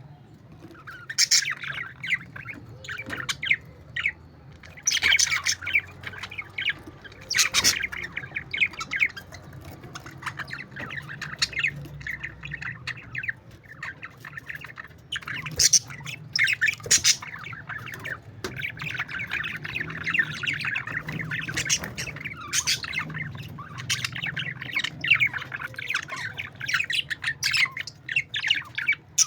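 A flock of budgerigars chattering and warbling continuously, with sharp loud squawks every few seconds, over a low steady hum.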